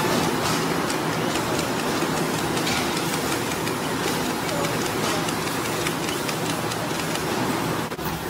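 Handheld electric cutter grinding off the protruding wire ends along the edge of a stack of welded wire mesh fence panels, so that the panel side is left smooth: a steady, dense grinding noise over a low hum, with fine rapid scratchy ticks.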